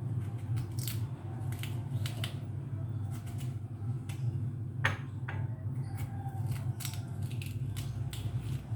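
Small irregular scraping and cutting clicks as the core of a halved pear is hollowed out with a kitchen utensil, the sharpest click about five seconds in, over a steady low hum.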